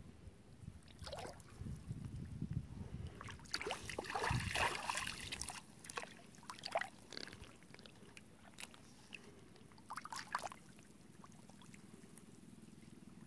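Water splashing and trickling in irregular bursts, with the loudest run of splashing about four to five seconds in and a few shorter splashes later.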